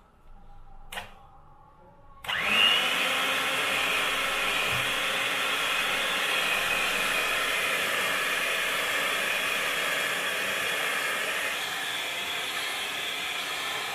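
Electric hand mixer switched on a little over two seconds in, its motor rising briefly in pitch and then whirring steadily as its beaters whip thin rice-flour and milk batter in a steel bowl. A single click comes about a second in, before the motor starts.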